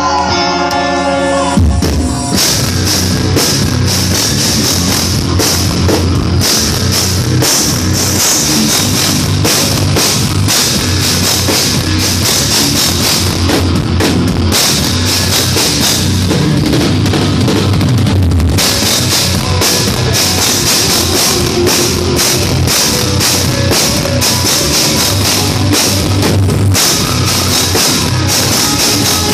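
Live instrumental progressive metal band: eight-string electric guitars over a full drum kit. A clean guitar passage plays alone at first, then drums and full band come in about two seconds in and drive on with a dense, fast beat.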